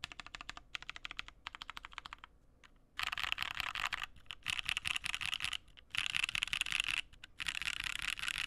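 Typing on a custom dnworks SBL mechanical keyboard with tactile Paco switches (NK Cream housings, Halo True stems) on a UHMWPE plate, under CYL Analog Dreams keycaps. Single keystrokes click one by one for about two seconds, then after a short pause come fast, continuous runs of typing about a second long, separated by brief gaps.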